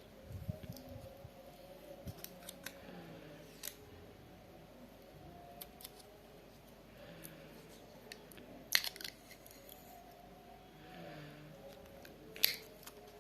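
Packaging of a pen and diary gift set being handled and opened: scattered light clicks and soft rustles, with two sharper clicks about nine and twelve and a half seconds in.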